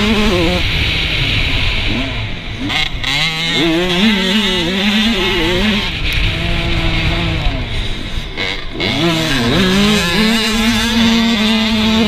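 Motocross dirt bike engine running hard under the rider, heard from a helmet-mounted camera. The engine note rises and falls with throttle and gear changes, drops off briefly about three seconds in and again around eight seconds, then holds steady near the end.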